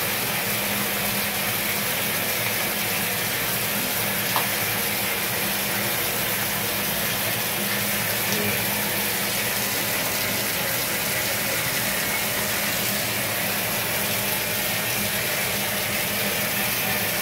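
Water running steadily into a bathtub from the shower and splashing on the tub floor, with a small click about four seconds in.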